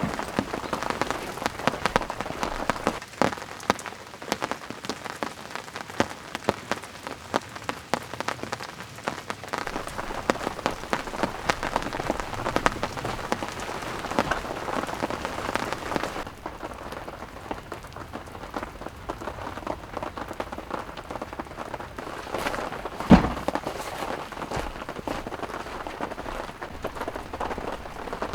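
Steady rain falling, with many individual drops pattering close by. About two thirds of the way in the sound turns duller, and a little later there is one loud sharp knock.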